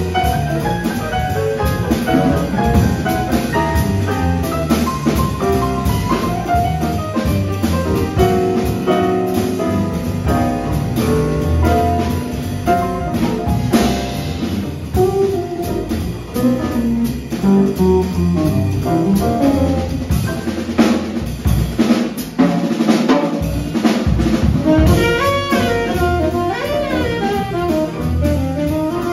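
A live jazz combo playing: piano, hollow-body electric guitar, upright bass and drum kit, with a saxophone coming in near the end.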